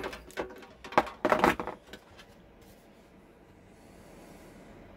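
Thin sheet-metal cone, cut from a saucepan lid and pop-riveted, being handled and picked up off a table: a few sharp metallic knocks and scrapes in the first two seconds.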